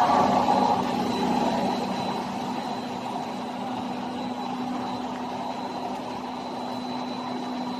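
Corn puff snack production line machinery running steadily: a low hum with a thin, constant high whine over an even rushing noise, a little louder in the first second.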